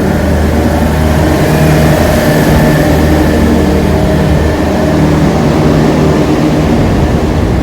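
Carrier 30GT six-compressor air-cooled chiller running: a loud, steady mechanical hum with a deep drone from the compressors and condenser fans.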